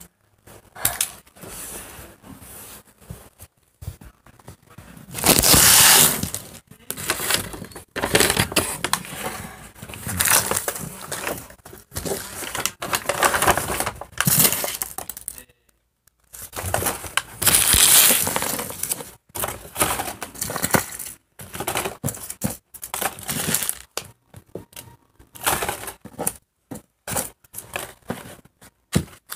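Candy wrappers of plastic and foil being crinkled and torn open by hand: irregular crackling with short pauses, loudest about six seconds in and again around eighteen seconds.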